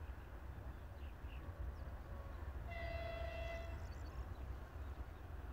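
Air horn of a TE33AC diesel locomotive sounding one blast of a little over a second, several tones at once, about halfway through, over a low steady rumble.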